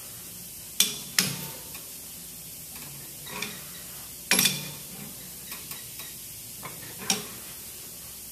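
Sharp metallic clinks of a wrench against the stainless-steel check valve fittings of a chemical injection pump head as the checks are tightened down: four louder clinks spread through, with a few fainter taps between.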